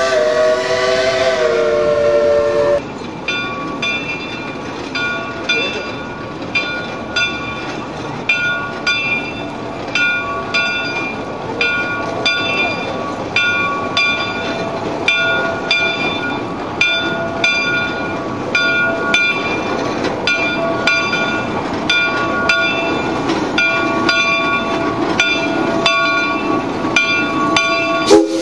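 A steam locomotive whistle sounds a chord for the first few seconds. After a cut, a locomotive bell rings steadily, about one and a half strikes a second, over the low noise of a Shay geared steam locomotive. The whistle sounds again right at the end.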